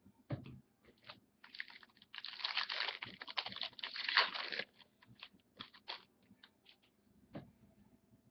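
Crackling of a trading-card pack wrapper being torn open and handled, lasting about three seconds near the middle. A soft thump near the start and scattered light clicks of cards being handled come before and after it.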